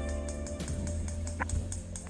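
Background music, guitar-based, with steady held notes and a couple of short sharp clicks.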